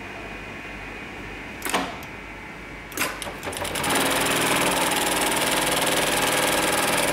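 Hightex MLK500-2516 automatic pattern sewing machine: over a steady hum, two sharp clacks about a second apart as the work clamp comes down on the webbing. The needle then starts with a few quick ticks that run together into fast, steady, louder stitching from about four seconds in.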